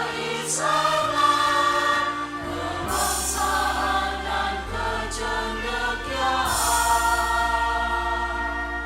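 A choir singing a school march with orchestral accompaniment: long held chords over changing bass notes, with crisp 's' consonants sung together a few times.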